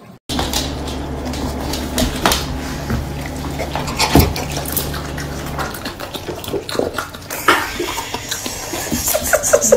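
A Rottweiler chewing and licking at food held to its mouth: wet smacking and slurping mouth sounds with many small clicks. A steady low hum under it stops about halfway.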